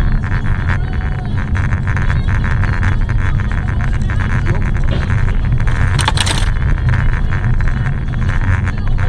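Steady low rumble of a car driving on a snowy, icy highway, heard from inside the car, with a brief harsh noise about six seconds in.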